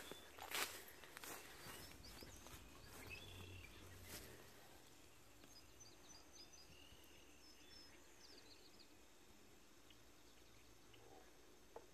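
Faint ambience: a few footsteps on old boards in the first couple of seconds, then near quiet with faint bird chirps.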